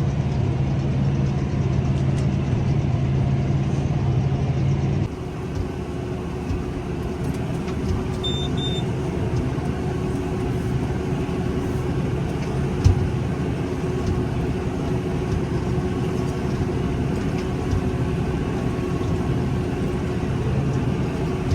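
Tractor engine running steadily, heard from the cab while baling. About five seconds in the sound changes abruptly to a rougher, noisier machine run with a steady hum, broken by a short double beep and, later, a single sharp knock.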